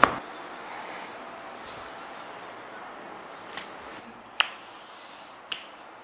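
A loud, sharp crack of a joint popping under a standing chiropractic manipulation, with the patient's arm pulled up overhead. Three fainter sharp clicks follow in the second half.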